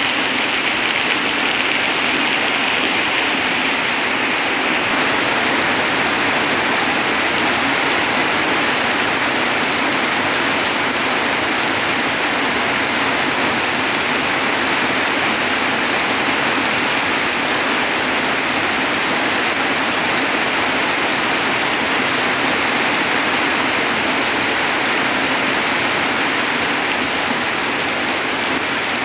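Heavy rain pouring steadily as a dense, even hiss, with a slight change in its highest part about four seconds in.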